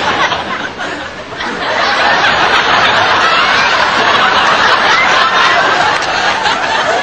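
Audience laughing, many people at once, dipping briefly about a second in and then going on steadily.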